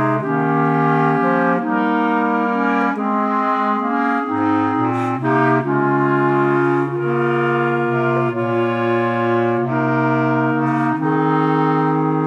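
Clarinet quartet, three clarinets and a bass clarinet, playing a slow harmonized passage: sustained chords that change every second or so over a low bass clarinet line.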